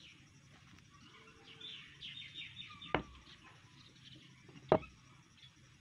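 Small birds chirping, with a quick run of high chirps about two seconds in. Two sharp knocks of wood on a wooden workbench, about three seconds in and again near five seconds, the second one the louder.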